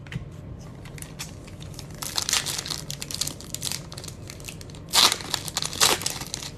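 Crinkling and tearing of a trading-card pack's foil wrapper as it is ripped open by hand, with two louder crinkles near the end.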